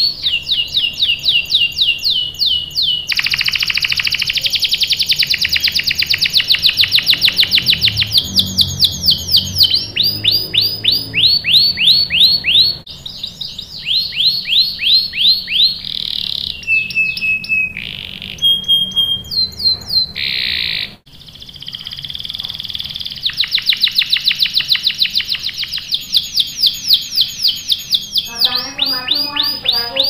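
Domestic canary singing long rolls: trains of rapid, repeated falling notes that change speed from one phrase to the next, broken briefly about a third and two-thirds of the way through.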